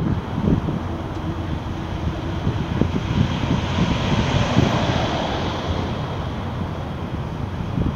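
Wind buffeting the microphone in irregular low gusts over a steady rush of noise, in which the distant roar of a Boeing 757-200 jetliner descending on approach is heard.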